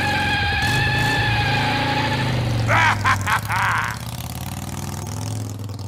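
Animated skeleton-on-motorcycle Halloween prop playing its recorded motorcycle engine sound effect through its built-in speaker: an engine revving and running, with a steady high whine over the first two seconds or so. A short burst of the Reaper's voice comes in about three seconds in.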